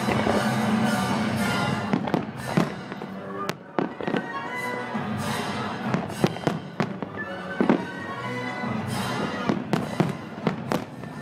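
Fireworks aerial shells bursting in quick, irregular succession, a string of sharp bangs and cracks, over music played for the show.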